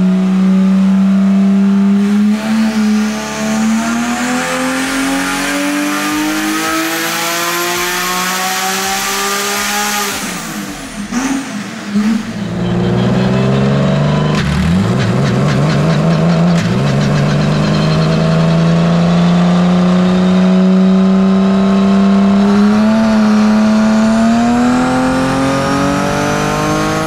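Twin-turbo Toyota 2JZ inline-six of a land-speed streamliner running under load on a hub dyno, its pitch climbing steadily through a gear. About eleven seconds in the sound dips and the pitch falls at a gear change, then it climbs again more slowly through the next gear.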